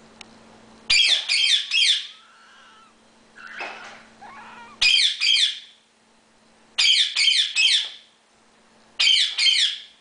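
Indian ringneck parakeet screeching loudly: four bursts of two or three quick, shrill, falling calls, with softer, quieter calls between them.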